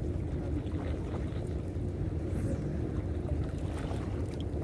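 Steady low rumble of open-air background noise beside harbour water, with no distinct event.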